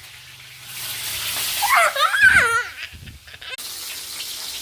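A high-pitched voice with swooping, wavering pitch, like laughter, over a rushing hiss; it cuts off abruptly about three and a half seconds in.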